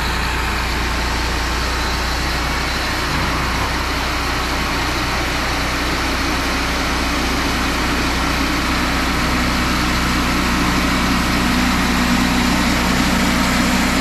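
Cook's HD3238 hydraulic portable sawmill running steadily, its engine and hydraulics driving the saw head along the track. The sound grows a little louder over the second half.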